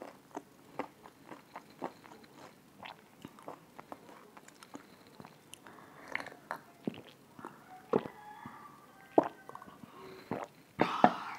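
Close-miked swallowing as water is drunk from a glass: a run of soft mouth and throat clicks, with a few louder gulps in the second half.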